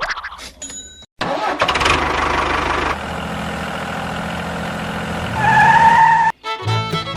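A vehicle engine starts about a second in and runs steadily, with a rising tone near the end; music with a beat comes in just before the end.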